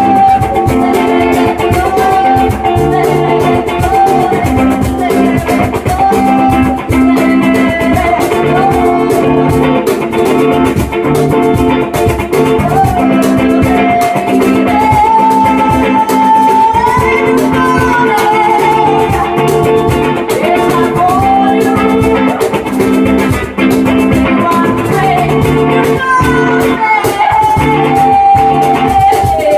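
Rock band playing live: guitars and drums over a repeating chord pattern, with a lead melody that bends in pitch.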